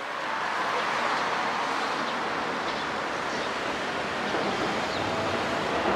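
Keikyu commuter train running on the track: a steady rushing noise of wheels on rail.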